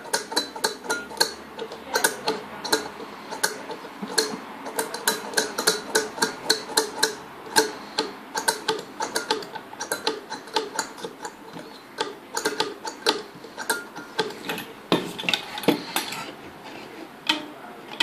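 Homemade noise instrument: a wavy strip of springy metal nailed to a wooden bat, flicked by hand again and again so it clacks against the wood and nail with a short metallic ring, a few irregular clicks a second. Near the end there is a brief, denser rattle.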